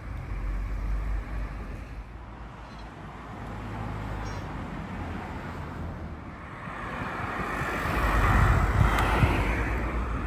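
Engine and road noise of a car being driven, a steady low rumble that grows louder about seven seconds in and peaks near the end.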